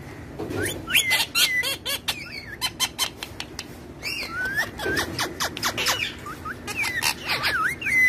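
Rose-ringed parakeets chattering: quick whistles and squawks that bend up and down in pitch, mixed with many short, sharp clicks.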